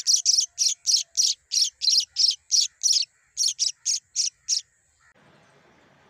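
Nestlings begging for food: a run of short, high-pitched cheeps at about three a second, which stops abruptly about four and a half seconds in, leaving only a faint hiss.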